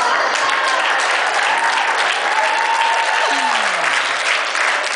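A church audience applauding after a puppet skit, with a few voices calling out over the clapping.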